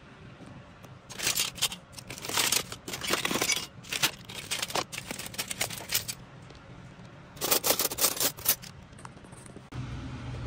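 Knives clinking and rattling against each other as they are handled in a box, in several short bursts of clicks and scrapes. About a second before the end, a steady low hum begins abruptly.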